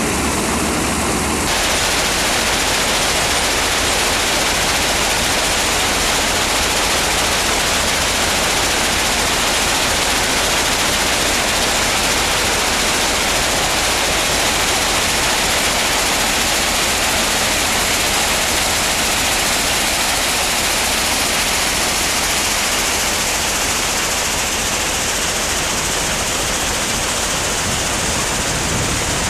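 Iron ore washing plant running: a steady, loud rushing hiss of water sprays and wet ore tumbling over a screen below the scrubber drum.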